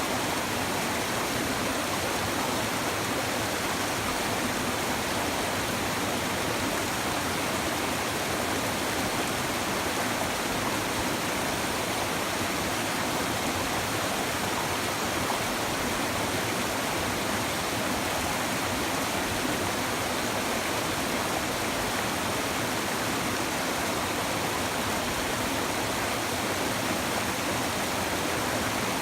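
A river's shallow water babbling over stones, a steady, even rush with no changes.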